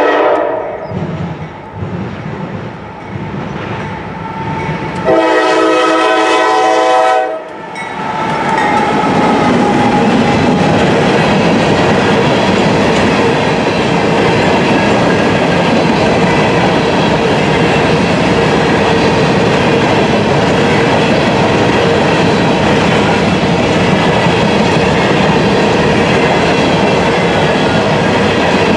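Locomotive air horn on a Norfolk Southern GE AC44C6M sounding a short blast at the start, then a loud blast of about two seconds some five seconds in. After it comes the steady rolling noise and clickety-clack of a long string of covered hopper cars going by.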